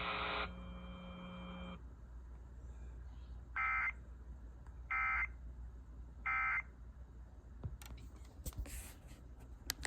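Emergency Alert System end-of-message data signal: three short, identical warbling two-tone bursts about a second apart, marking the end of the alert. A steady hum cuts off early on, and a few clicks and a short burst of static follow near the end.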